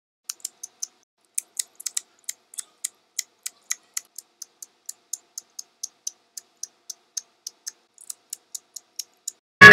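A rapid series of short, sharp, light clicks, about four to five a second, unevenly spaced at first and then steady, before music starts abruptly at the very end.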